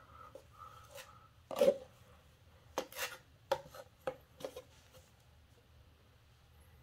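Steel drywall knife scraping and tapping on an aluminium hawk, pushing lumpy, half-mixed setting-type joint compound into a mound: a string of short scrapes and clicks, the loudest about a second and a half in, ending after about four and a half seconds.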